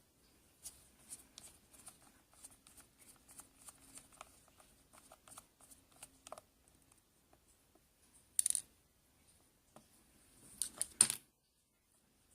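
Faint light clicks and small metallic ticks as a padlock and its small parts are handled, with two louder brief scraping bursts about 8.5 and 11 seconds in.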